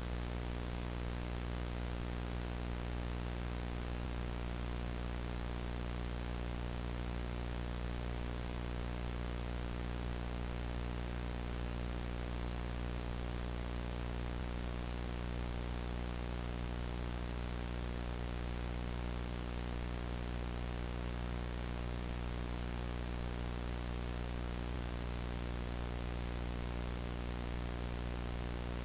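VHS static: steady analog tape hiss over a low buzzing hum, unchanging throughout.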